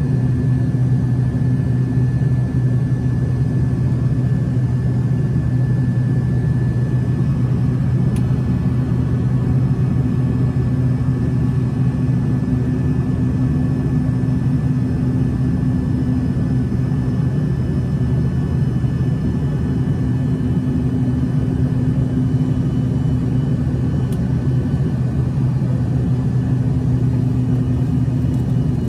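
Cabin noise inside an Embraer ERJ-145LR regional jet climbing after takeoff: the steady, loud drone of its rear-mounted Rolls-Royce AE 3007 turbofans mixed with the rush of airflow, with faint steady whining tones above.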